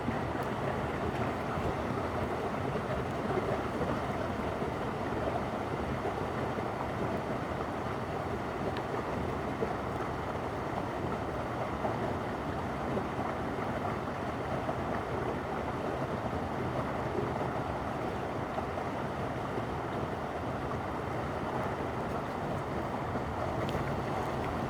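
Stream water rushing steadily, an even noise with no breaks.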